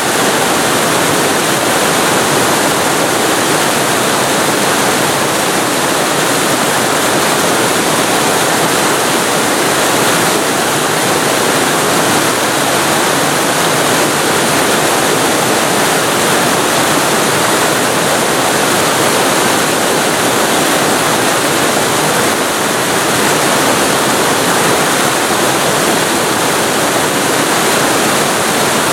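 Waterfall heard from very close: loud, steady rush of falling water, unbroken, with the hiss reaching high up.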